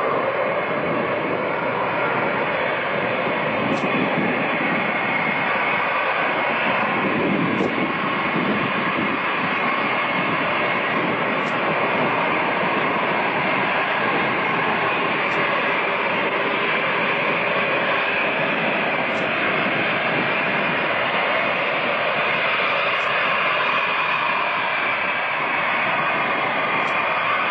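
Concorde's four Olympus 593 turbojets running steadily at taxi power as the airliner moves along the runway and turns, a constant even jet noise with no change in level.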